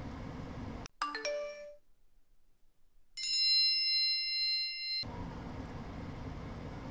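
Edited-in chime sound effects: a quick run of short pitched chime notes about a second in, then a sustained bell-like ding from about three seconds in, cutting off about five seconds in. Before and after, a steady hiss of sweet potato strips frying in oil, silenced while the effects play.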